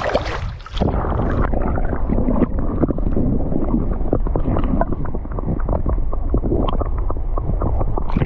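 Shallow water sloshing and gurgling around a camera's submerged microphone as a hand releases a snook. After a brief splash at the start, the sound turns muffled and rumbling with many small crackles.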